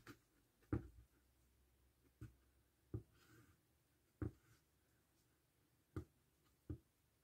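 Faint handling taps and clicks from hands working cotton yarn with a crochet hook, about seven at irregular intervals over otherwise quiet room tone.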